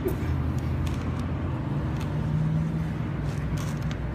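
Steady low hum of a running engine, with a few light clicks over it.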